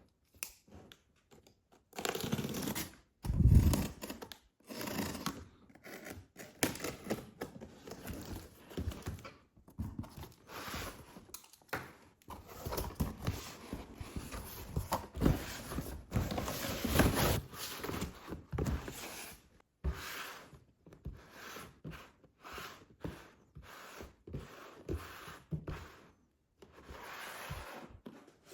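Packaging being handled and opened: irregular scraping, tearing and crinkling of cardboard and plastic wrap, with a heavier thump about three and a half seconds in.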